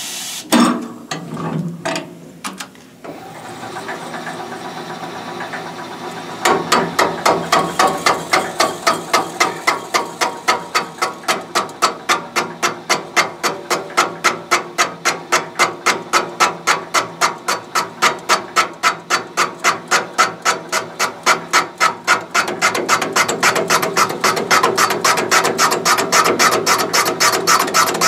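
Chamber cutter on a VGS-20 seat-and-guide machine cutting into a big-block Chevy cylinder head's combustion chamber around the valve seat: an even, rhythmic scraping chatter of about three strokes a second that starts about six seconds in and gets louder near the end. Before it comes a few metal clinks and a softer steady running sound as the cutter is brought down.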